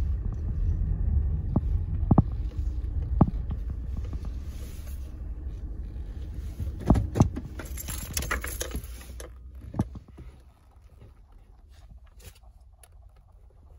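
Car engine idling with a low, steady hum, with a few sharp taps of leather-soled shoes on the pedals and a brief rustle. About ten seconds in the engine stops, leaving only faint small clicks.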